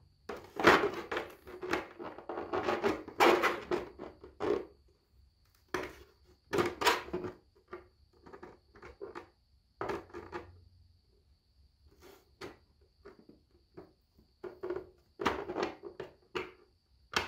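Rigid 3D-printed PLA costume parts being handled and fitted together by hand: irregular knocks, clacks and scrapes of hard plastic, in clusters with short pauses between them.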